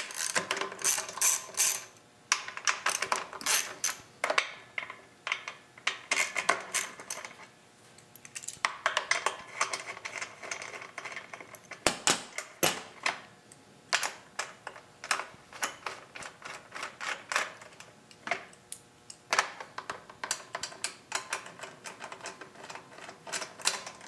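Rapid metallic clicking of a ratchet wrench in repeated bursts with short pauses, loosening the nuts that hold the recoil starter and shroud on a Honda GC190 engine.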